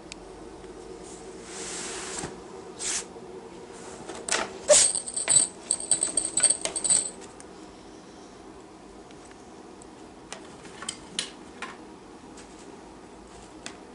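Small metal bell jingling and rattling in a quick run of shakes with a ringing tone for about two and a half seconds midway, with a few lighter clicks before and after.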